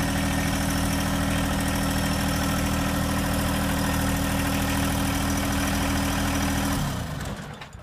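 John Deere 1025R compact tractor's three-cylinder diesel engine idling steadily, then shut off near the end and running down to quiet.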